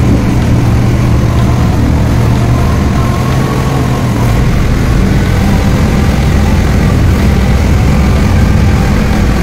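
Vehicle ferry's engine running steadily: a loud, even low hum with no change in speed.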